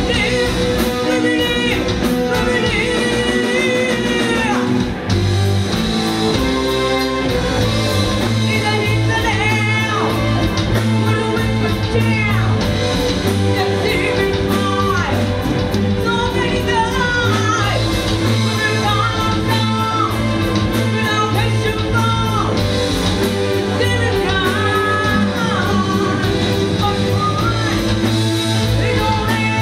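A live rock band plays loudly: a female lead singer over electric guitar, electric bass, drums and keyboards. A low bass note holds under the vocal from about five seconds in.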